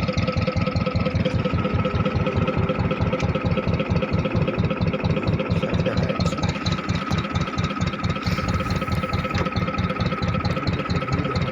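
A small engine running steadily with a rapid, even beat and a steady high tone above it.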